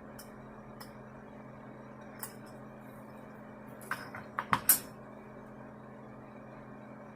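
A few short, sharp metallic clicks and clinks of tools and bolt hardware being handled during generator assembly, one about two seconds in and a quick cluster about four to five seconds in, over a steady low hum.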